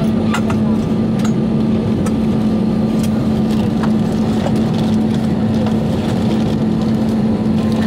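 Airbus A320 cabin noise while taxiing to the gate: a steady hum with one constant low tone, and a few light clicks scattered through it.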